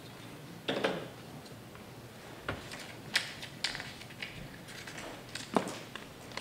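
Sheets of paper handled on a tabletop: a rustle with a knock about a second in, then several sharp clicks and taps spread over the rest.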